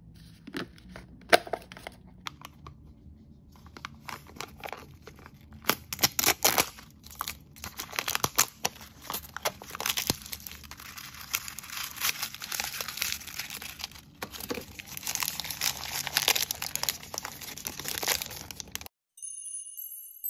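Fingernails click and tap on an L.O.L. Surprise plastic capsule ball, close up. From about six seconds in, crinkling plastic wrap and foil blind-bag packaging rustle and tear continuously. Near the end the crinkling stops and a short tinkling chime tune begins.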